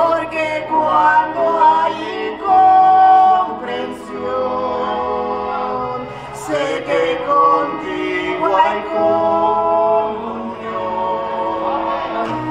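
Live worship music: voices singing a slow song in long held notes over keyboard accompaniment.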